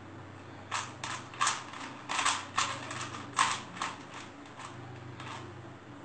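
Rubik's cube being twisted by hand: a quick, uneven run of plastic clicks and clacks as its layers turn, starting about a second in and easing off near the end, over a steady low hum.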